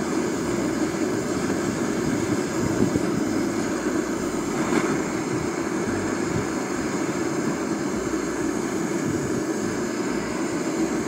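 Gas torch running steadily, its flame held against a block of wood to test how it burns.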